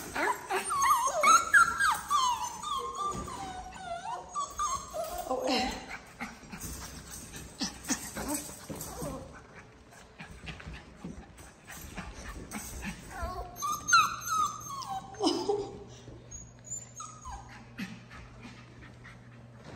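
Cockapoo puppies whining and yipping as they play, with short high calls that bend in pitch. The calls are thickest in the first six seconds and come again around the middle of the second half.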